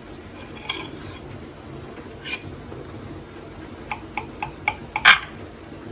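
Kitchen utensils clicking and clinking against a baking dish as cooked pork chops are cut into to check whether they are done: scattered single clicks, a quick run of about five light taps, then one louder clink near the end, over a low steady hum.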